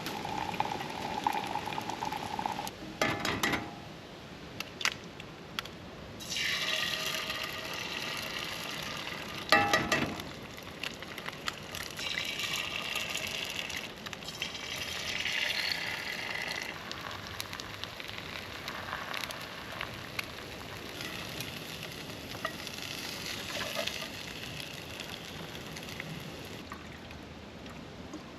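Eggs and turkey sausage frying in a cast-iron skillet, sizzling in waves that swell and fade, with a few sharp knocks at the pan.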